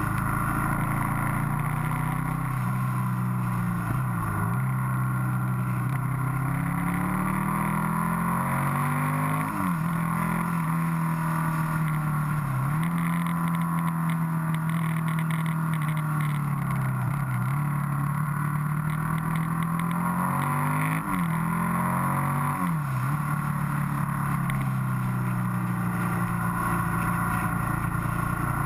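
Motorcycle engine running at road speed, heard onboard over steady wind noise; the engine note dips sharply and climbs back about six times, as with gear changes and easing off for bends.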